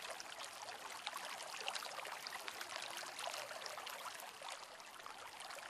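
Faint, steady trickle and patter of water, with many small drop-like ticks.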